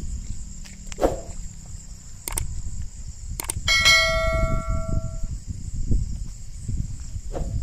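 A single metallic strike about four seconds in that rings like a small bell, its tones dying away over about a second and a half, over a steady high chirring of crickets. A few light clicks come before it.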